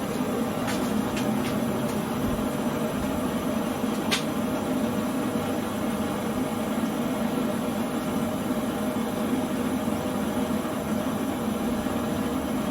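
Gas burner of a foundry furnace running, a steady, even rushing noise with a low rumble. A couple of light clicks sound over it, one about four seconds in.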